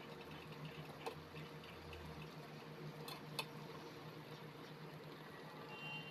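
Faint simmering of paksiw na bangus, milkfish stewing in broth in a stainless steel pan on a gas burner, over a steady low hum, with a few light clicks about one second and three seconds in.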